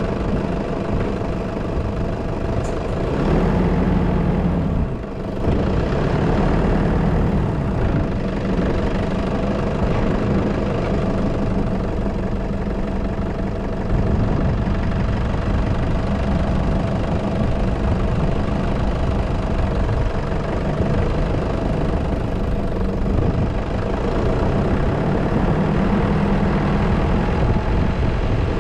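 Engine of the vehicle carrying the camera, running with a steady hum as it pulls away and drives slowly through the streets. There is a brief dip in the sound about five seconds in.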